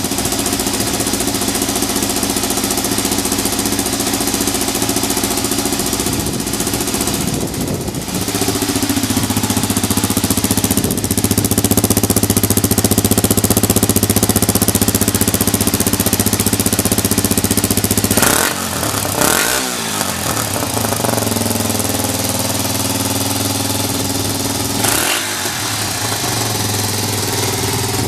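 Yamaha TT250R's single-cylinder four-stroke engine idling steadily. Its note shifts and grows louder about a quarter of the way in, and there are two quick throttle blips, one about two-thirds of the way through and one near the end. The idle is even, which the seller lists as stable with no abnormal noise.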